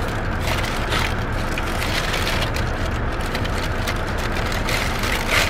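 Steady low hum inside a car, with a paper taco wrapper crinkling and a crunchy Doritos Locos taco shell being chewed in small crackles.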